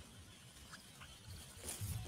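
Two faint short bird chirps from the nest and a brief rustle near the end, over a low rumble.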